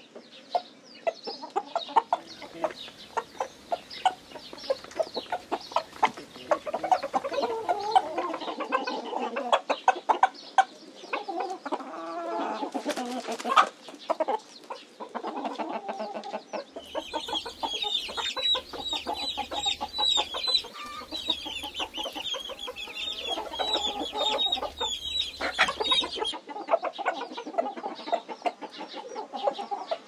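Domestic hens clucking: a steady run of short, repeated clucks, with a longer drawn-out call near the middle and a stretch of higher, busier calling in the second half.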